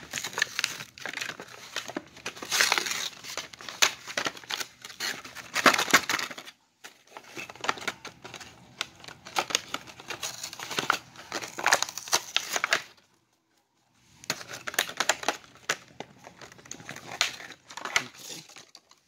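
Plastic toy packaging being poked open, torn and crinkled by hand, a dense run of crackles with two short pauses, one about seven seconds in and one about thirteen seconds in.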